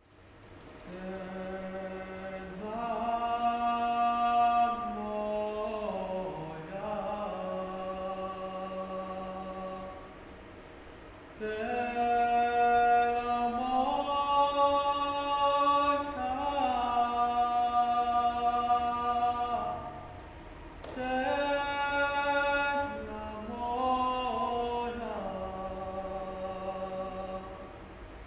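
Mixed choir singing a cappella in slow, sustained chords, in three long held phrases with short breaths between them.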